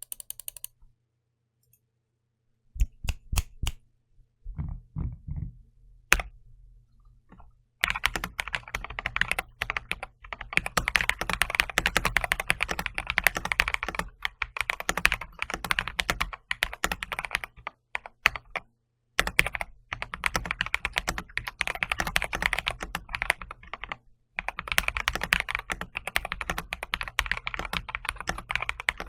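Keyboard with an unusual-sounding key action being typed on: a few separate key presses at first, then long runs of fast typing with a couple of brief pauses.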